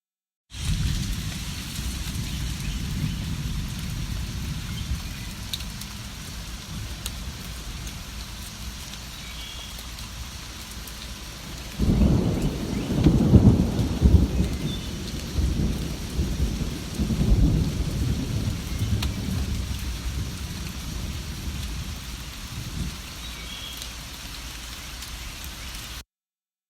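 Steady rain falling, with a long low roll of thunder about halfway through that rumbles for several seconds and fades. The rain cuts in just after the start and cuts off abruptly near the end.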